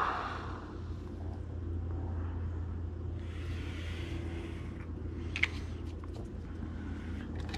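A steady low hum, with faint handling sounds of a small bottle of thread-locker and a bolt being worked in the hands, and a light click about five and a half seconds in.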